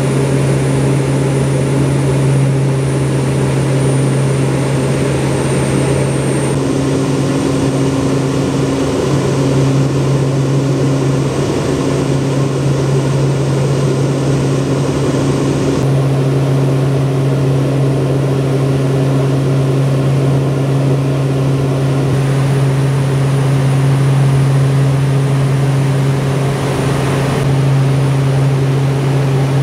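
Short C-23B Sherpa's twin turboprop engines and propellers running steadily in flight, heard from inside the cabin: a loud, even low hum with a faint high whine above it. The tone shifts slightly a few times.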